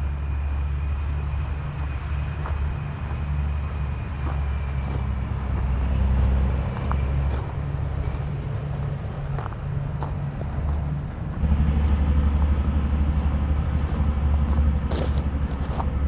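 Low, gusty rumble of wind buffeting a handheld action camera's microphone during a walk outdoors, growing louder about two-thirds of the way in, with scattered light clicks on top.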